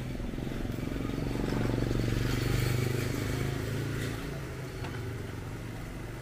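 A motor vehicle's engine passing close by on the street, a steady drone that swells to its loudest about two and a half seconds in and fades away by about four seconds.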